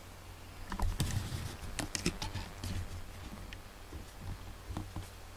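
Irregular light clicks and rustling of a handheld camera being handled and moved, starting about a second in, over a steady low hum.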